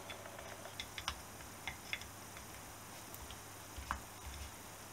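Light, irregular metal clicks of long-nose pliers working against a motorcycle front brake backing plate at the speedometer drive, a dozen or so scattered ticks.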